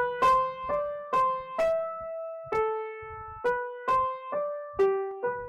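Short intro jingle played on an electric keyboard: a single-line melody of about a dozen notes, each note struck and then fading, with two longer held notes in the middle.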